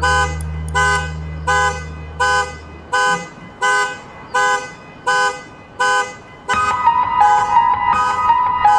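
Background music: a short honk-like chord repeated evenly about every three-quarters of a second over a held bass note, giving way to a busier melody about six and a half seconds in.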